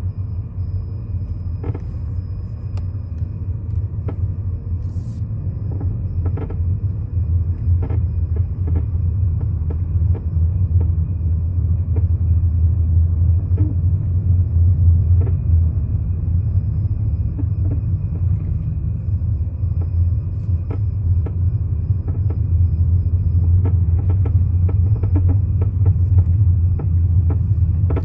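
A BMW's steady low running rumble, with short sharp creaks at irregular intervals every second or two that come more often near the end.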